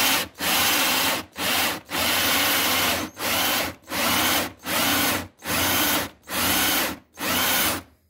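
Power drill boring a 1.5-inch Forstner bit into an MDF block, run in about a dozen short bursts of half a second to a second, with brief stops between. The bit is cutting a shallow blind hole, not going all the way through.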